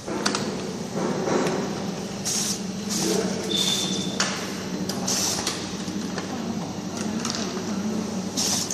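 Automatic sticker labeling machine running: a steady motor hum from the conveyor and label applicator, with short hissing bursts every second or two and a few sharp clicks. A brief high tone sounds for about half a second around four seconds in.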